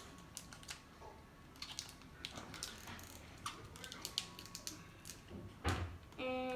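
Cardboard and plastic packaging of an iPad charger box being handled and opened: scattered light clicks, taps and rustles, with one louder knock near the end.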